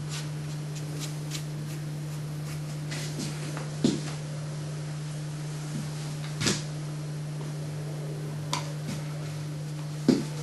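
Several light knocks and clicks from a paintbrush and painting gear on the table, the clearest about four seconds in, six and a half seconds in and near the end, over a steady low hum.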